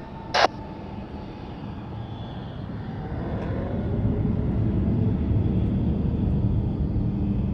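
Jet airliner engines passing close by: a low rumble that builds over a couple of seconds and then holds steady, with a falling whine partway through.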